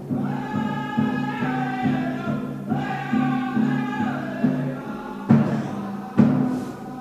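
Ojibwe drum group singing in unison over steady, even strikes on a large shared powwow drum, the voices high and falling in two phrases. The singing stops about four and a half seconds in, leaving heavier single drum strikes about a second apart.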